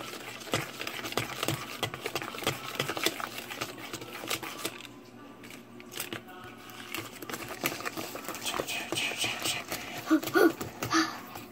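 Thick cake batter being stirred by hand in a plastic container, the utensil making quick, irregular clicks and scrapes against the container, with a short let-up about five seconds in.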